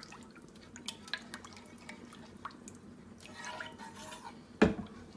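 Metal spoon stirring thick white sauce in a pan on the stove, with scattered light clicks and scrapes of the spoon against the pan, and one sharp knock near the end.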